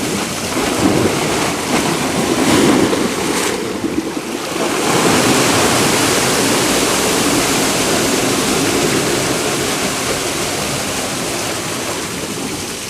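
Sea surf washing over and draining off a lava-rock shore, with a fresh surge of rushing water about five seconds in that slowly eases off.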